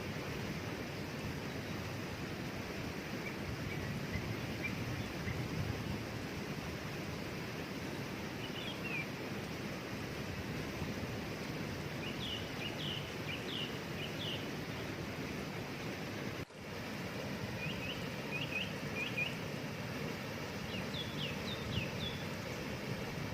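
Steady rush of a waterfall, with a songbird calling in several short bouts of quick high chirps from about eight seconds in. The sound drops out for an instant just past the middle.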